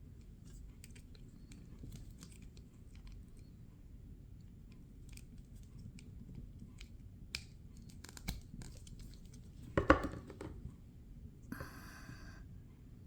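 Packaging being handled and opened: scattered light clicks and rustles, a louder crinkle about ten seconds in, then a tearing sound lasting about a second.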